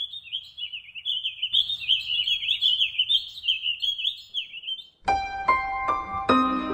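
A small songbird twittering in rapid high chirps; about five seconds in the birdsong stops and slow piano notes begin.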